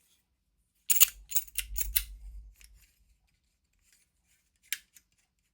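Small metal watchmaker's tools being handled: a quick run of sharp clicks about a second in, with a low handling rumble under them, then a single click near the end.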